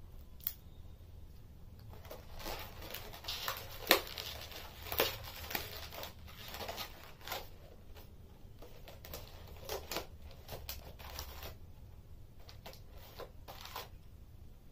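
Latex twisting balloons being handled and twisted by hand: irregular rubbing and crinkling strokes with a few sharper snaps, the sharpest about four and five seconds in, over a faint low hum.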